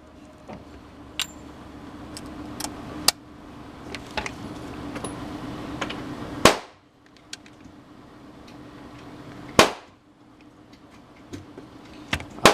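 Gunshots at a shooting range: two loud close shots about three seconds apart from a CMMG Banshee short-barrelled rifle, with fainter cracks and clicks scattered around them.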